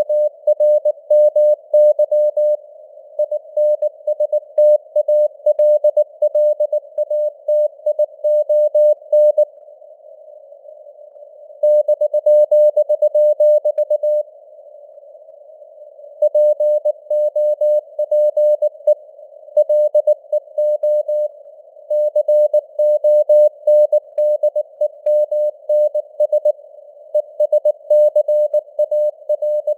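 Morse code at 19 words per minute: a sine tone of about 600 Hz keyed on and off in dots and dashes, over a narrow band of simulated radio hiss. The keying stops for about two seconds twice near the middle.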